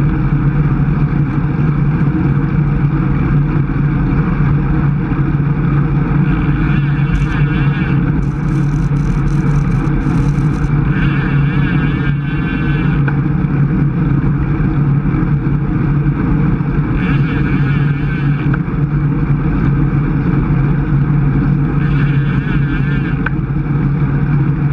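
Wind rushing over the microphone of a bicycle-mounted camera at about 23 mph, a steady rumble with no letup.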